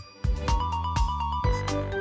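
Background music with a steady beat and a bass line, and a quick run of repeated melody notes near the middle.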